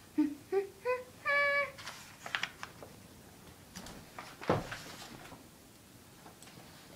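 A child hums four short notes, each higher than the last, the fourth held a little longer. Faint rustling follows, with a soft knock about four and a half seconds in.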